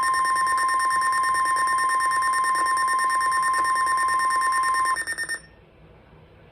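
Weather-radio alert signals between two warnings. A steady 1050 Hz warning alarm tone sounds together with a shrill, rapidly pulsing electronic alarm buzz. The tone cuts off about five seconds in and the buzz half a second later.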